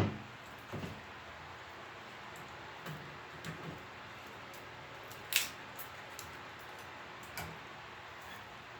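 Wood-scrap fire burning in a wood stove, crackling with a few scattered sharp pops over a low steady hiss, the loudest pop about halfway through.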